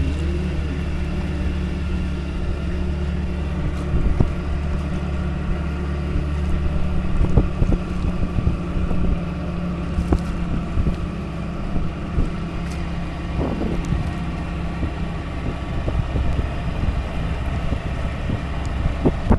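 Small boat's engine running steadily at a low, even drone, with wind buffeting the microphone and irregular thumps throughout.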